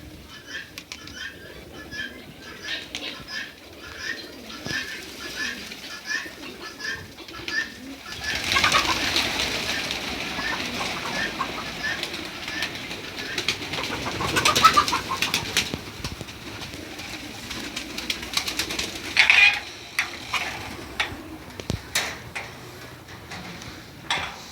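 A flock of poultry birds calling: a quick run of short, evenly repeated calls at first, then, about a third of the way in, a louder stretch of many birds calling over one another.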